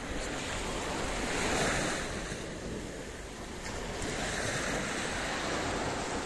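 Sea surf washing onto a sandy beach, a steady rush that swells about a second and a half in and again after about four seconds, with wind buffeting the microphone.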